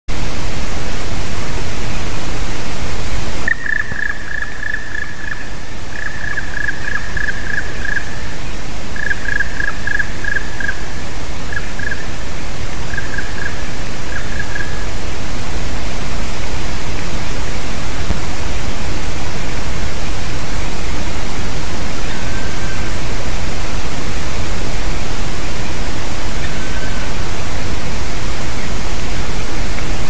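Black woodpecker calling in bursts of rapid, repeated notes for about ten seconds from a few seconds in, then two faint single notes later, all over a loud steady hiss.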